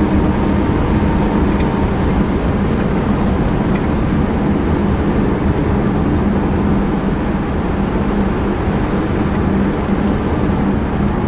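A 1956 Ford Fairlane Sunliner convertible cruising at a steady speed, heard from inside the open car: the 292 cubic-inch V8 hums steadily under rushing wind and tyre noise.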